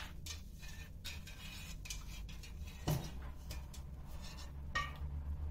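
Metal kitchenware being handled: a stainless steel pot of syrup and a ladle clinking and knocking as the pot is lifted off the stove. A few light clicks, a heavier knock about three seconds in, and a ringing metallic clink near the end.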